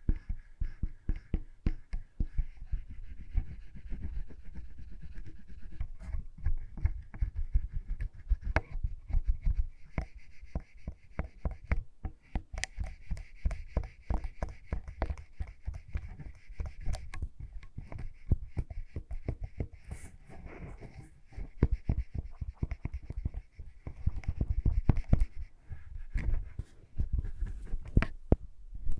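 Close-miked ASMR lip balm sounds: a dense, irregular run of small clicks and taps with soft breathy noise.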